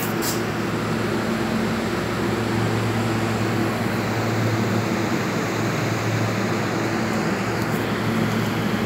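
Ripening chamber's cooling unit running: a steady rush of fan air with a constant low hum underneath.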